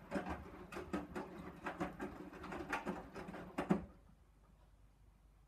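Hoover Dynamic DYN 9164 D8PX washing machine's drum tumbling a load during a Rapid 30 wash, with irregular patter and knocks over a steady motor sound. It stops abruptly about four seconds in, as the drum pauses between turns.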